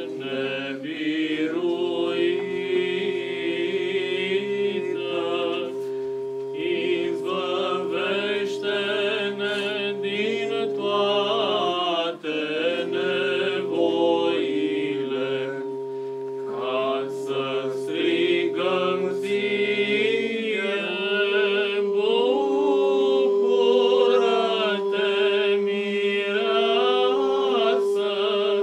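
A small group of men chanting an Orthodox Byzantine-style hymn unaccompanied, in Romanian: a steady held drone (ison) under a melismatic melody line. The drone breaks off briefly and is taken up again twice.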